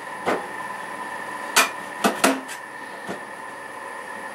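Several sharp separate knocks and clatters from things being handled in a kitchen sink, over a faint steady hum.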